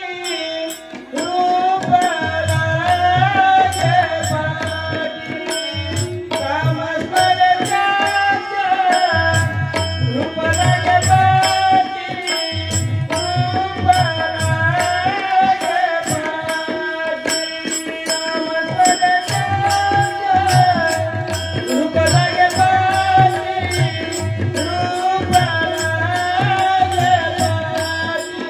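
Devotional bhajan: a voice singing a melodic line over a drum that beats in repeated phrases with short breaks, and a steady clicking beat keeping time.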